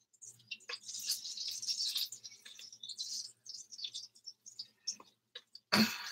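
Faint rustling and small clicks of handling close to a laptop's built-in microphone, over a faint steady hum, with one louder thump near the end.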